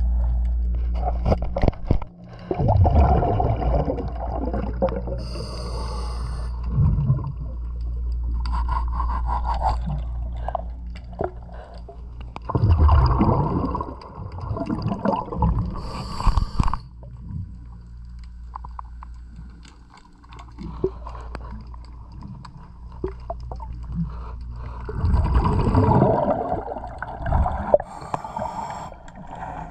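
A scuba diver breathing through a regulator underwater, three breaths about eleven seconds apart. Each exhale is a loud gush of bubbles and each inhale a short hiss, over a steady low hum.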